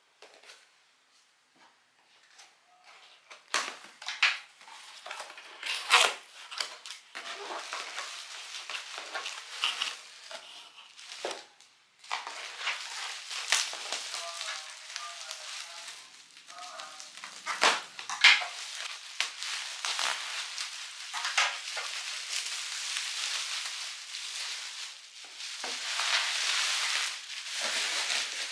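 Bubble wrap and plastic packaging rustling and crinkling in the hands as a parcel is unwrapped, with many sharp crackles and the odd knock of cardboard. It starts about two seconds in.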